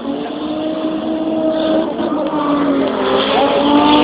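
Drag racing cars accelerating hard down the strip, growing louder. The engine note climbs and drops back at each upshift, several times.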